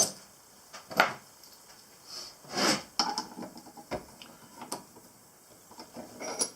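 Rummaging for a tool: scattered knocks, clicks and clatters of hard objects being moved and set down, about one a second, with a drawer or bin being handled.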